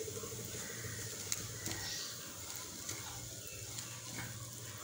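Potato and onion samosa filling frying in ghee in a non-stick kadai, sizzling softly as it is stirred with a wooden spatula, with a few light taps of the spatula against the pan.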